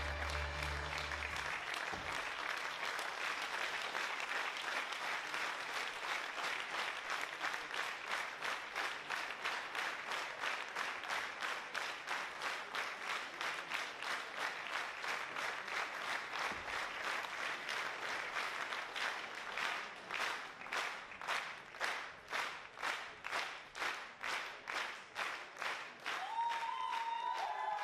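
Theatre audience applauding, the clapping gradually falling into rhythmic clapping in unison, about two claps a second. It stops just before the end as music starts again.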